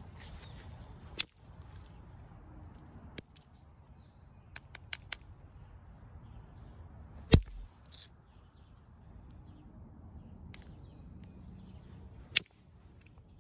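Copper-headed billet striking the edge of a rough jasper blank in percussion flintknapping, knocking off flakes: four sharp cracks a few seconds apart, the loudest about halfway, with a few fainter ticks between.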